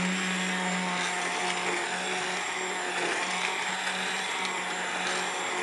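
Immersion blender running steadily, its motor humming as the blade purées chunks of cooked apple and strawberry in syrupy jam.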